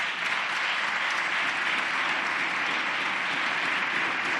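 Parliamentary deputies applauding together, a steady, sustained round of clapping from many hands.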